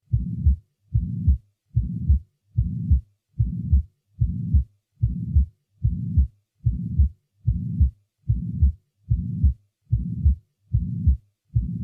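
Recorded heart sounds with a murmur, at a steady rate of about 75 beats a minute. Each beat is a stretch of low, continuous murmur between two sharper heart sounds, the louder one at its end, followed by a brief silence.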